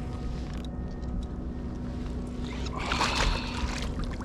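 Steady drone of a motorboat engine on the water, with a burst of splashing water about three seconds in.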